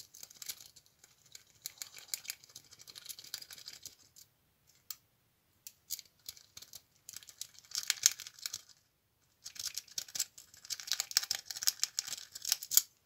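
A steel city rake scrapes and clicks rapidly in and out of the pin-tumbler keyway of a 65mm Marksman padlock held under a tension wrench. It comes in three spells: about four seconds at first, a short one near the middle, and a longer one to the end. The pins do not all set and the lock stays shut.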